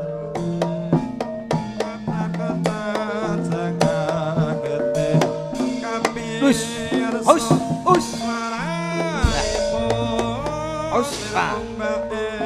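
Javanese gamelan music: struck metal keys hold steady notes while a kendang hand drum plays quick sharp strokes, and a wavering, gliding melody line rises above them around the middle.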